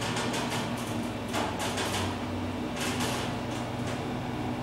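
Schindler hydraulic elevator car riding upward: a steady low hum, with a few brief clicks and rattles in the first few seconds.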